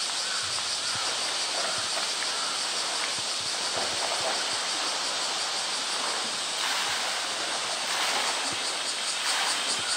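Pool water splashing and sloshing as a polar bear wrestles with floating blue plastic drums, with small knocks against the drums. Behind it runs a steady high insect drone that pulses evenly near the end.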